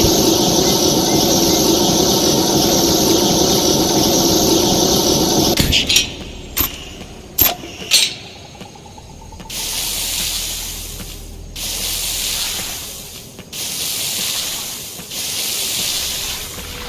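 M260B flamethrower sound effect: a long, steady, hissing rush of the flame jet for about five and a half seconds. A few sharp clicks follow, then four shorter hissing bursts of a second or two each.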